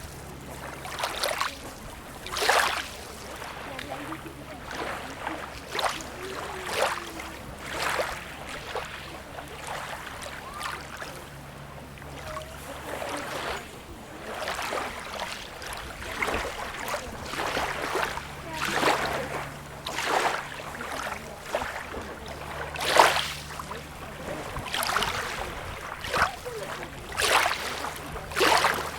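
Small sea waves lapping and splashing at the shore in quick, irregular strokes about every second or so, over a faint low rumble.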